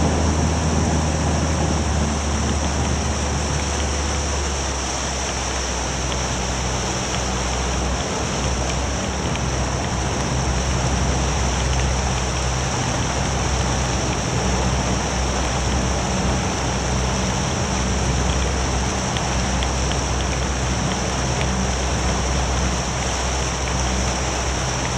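Outboard motor of a rigid inflatable boat running at low cruising speed, a steady low hum under a constant hiss of water rushing along the hull and wind. The engine note eases slightly about five seconds in.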